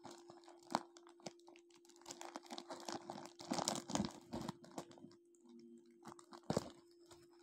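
Plastic courier mailer being crinkled and torn open by hand: irregular crackling with sharp snaps, busiest about three and a half to four and a half seconds in.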